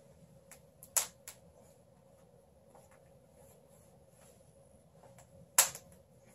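Worn denim jeans being tugged up by hand, with faint cloth rustling and a few sharp clicks: two about a second in and a louder one near the end.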